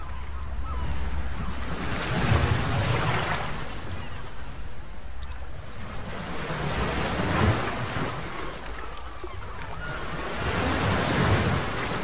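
Sea wind gusting over the microphone, low rumbling buffets swelling up about three times, over the wash of surf.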